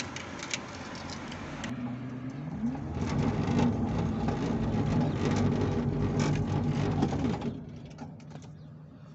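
An electric motor whirs up in pitch about two and a half seconds in, runs with a steady hum for about five seconds, then winds down near the end.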